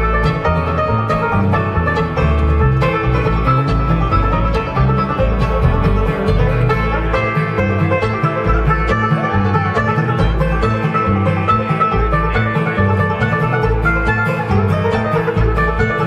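Live bluegrass band playing, with banjo picking and acoustic guitar over a moving bass line.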